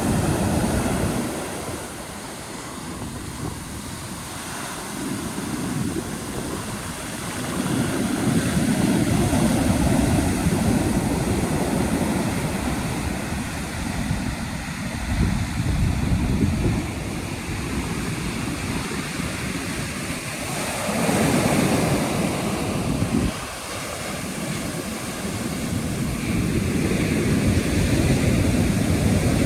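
Atlantic surf breaking on a beach, a steady rush of water that swells and ebbs with each wave, with louder surges about a third of the way in, around two-thirds through, and near the end.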